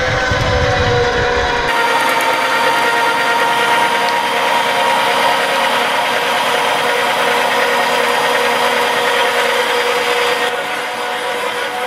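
Electric meat grinder's motor running steadily, driving its auger to force soft red jelly-like food out through the grinding plate. A low rumble drops away about two seconds in and the motor hum carries on.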